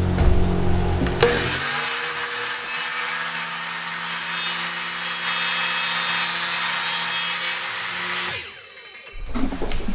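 Electric circular saw cutting through wood: a steady motor hum under the loud hiss of the blade in the cut, which starts abruptly about a second in. Near the end the cut stops and the motor winds down.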